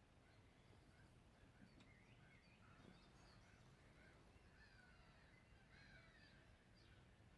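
Faint birdsong: many short chirps and warbling notes from small birds, over a low steady background rumble.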